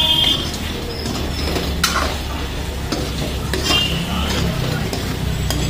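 Steel spoon stirring chicken curry in a kadhai, scraping and clinking against the pan about every two seconds, over a steady sizzle of the masala frying.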